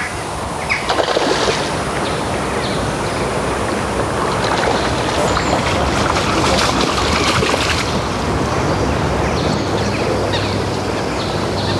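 A hooked rainbow trout splashing at the surface of the water as it is played on a fly rod: a run of choppy splashes, thickest in the middle, over a steady rushing background.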